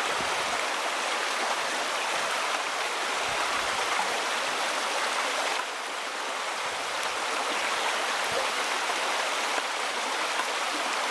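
A small, shallow stream running over rocks: a steady rush of water.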